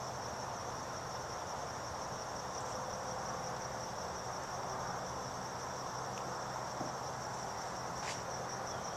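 Crickets trilling in one steady, high, unbroken tone, over a faint even hiss.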